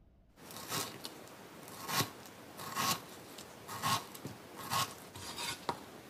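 Repeated rasping, scraping strokes, about one a second, from hand work in food preparation, starting about half a second in.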